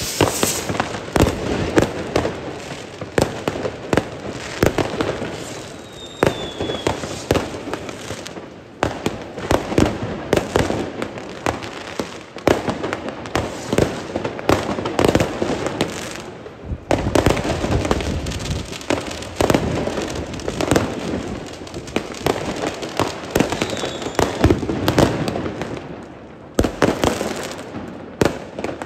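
New Year's Eve fireworks going off all around without a break: rockets, firework batteries and firecrackers in a dense run of bangs and crackles. A short falling whistle comes about six seconds in and again near the end.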